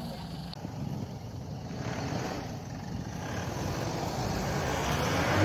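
A 4x4 pickup's engine running under load as it drives up a snowy slope, growing steadily louder as it comes nearer.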